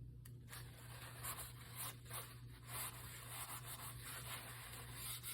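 Paper towel rubbing and scrubbing to wipe Fabri-Tac glue off, a faint, irregular scratchy rubbing that starts about half a second in.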